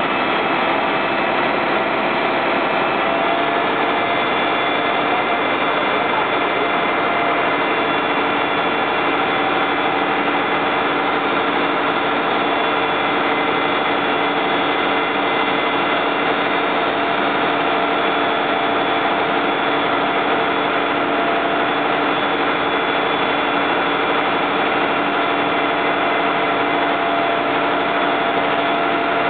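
Fire trucks' engines running steadily to power the pumps feeding the charged hoses and the turntable ladder, an unbroken drone with several steady tones.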